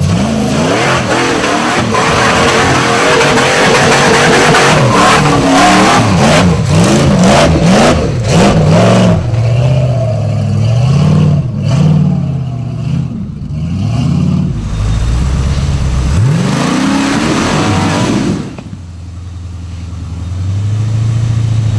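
Off-road rock buggy engine revving in repeated bursts, the pitch rising and falling again and again as it works up a rocky ledge, with a run of sharp cracks about six to nine seconds in. Near the end the engine drops away briefly, then revs again.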